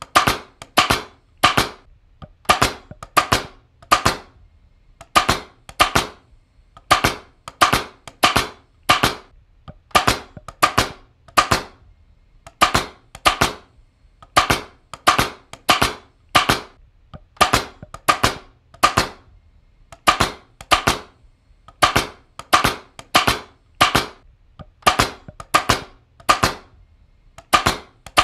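Pneumatic upholstery staple gun firing over and over, a sharp snap roughly every second, the snaps often coming in quick pairs.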